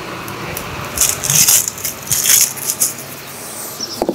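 Papery outer skin being peeled off a red onion: crackling rustles in three short spells, then a single knock of a knife on a plastic cutting board near the end.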